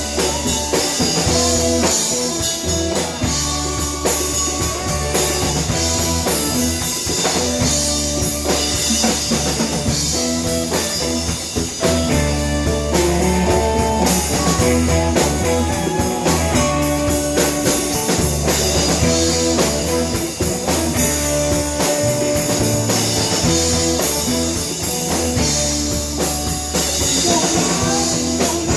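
Live rock band playing an instrumental blues-rock jam: drum kit keeping a steady beat under guitar and a low bass line, with no singing.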